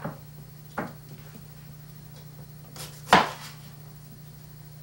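Chef's knife knocking on a wooden cutting board while cutting a bell pepper: a light knock about a second in and a sharper, louder knock about three seconds in, over a low steady hum.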